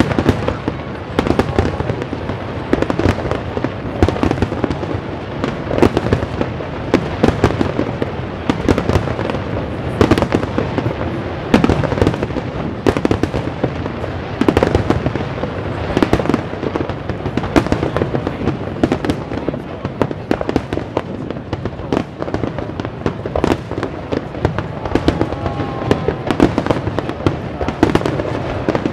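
Fireworks display: a dense, continuous barrage of sharp bangs and crackling from bursting aerial shells, several reports a second, loud throughout.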